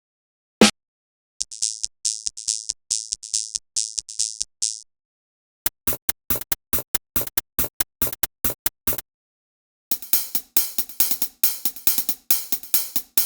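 Drum machine percussion samples from an acid techno sound pack, played one after another. A single hit comes first. Then three short hi-hat and cymbal patterns follow with brief silences between them: a loop of hissy open hits, a run of quick ticking closed hits at about six a second, and a denser, fuller pattern near the end.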